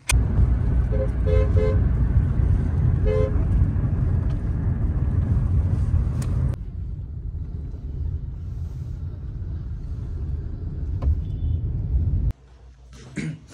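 Steady low rumble of road noise inside a moving car, with short car-horn toots: a quick run of honks about a second in and another honk about three seconds in.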